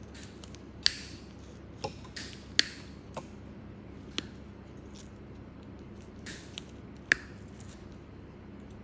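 Steel nail nippers clipping and paring a thick, crumbly toenail: a series of sharp, irregular snips, the loudest about a second in, around two and a half seconds and about seven seconds in, with softer scrapes of the blades on the nail between.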